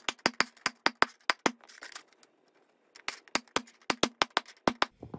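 Claw hammer tapping the zipper joints of 3D-printed plastic interlocking tiles to seat them together. The taps come quick and sharp, about six a second, in two runs with a pause of about a second and a half between them.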